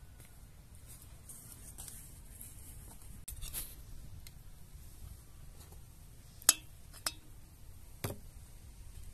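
Kitchen utensils clicking and knocking against cookware while potatoes are cooked: a few scattered sharp clicks, the loudest about halfway through, with two more soon after, over a low steady rumble.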